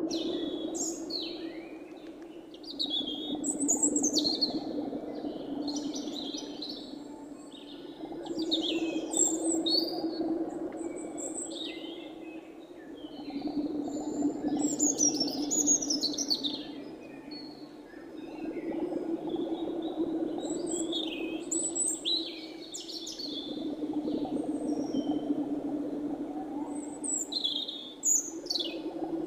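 Small songbirds chirping and singing in quick, varied phrases throughout, over a low steady hum that swells and fades every five seconds or so.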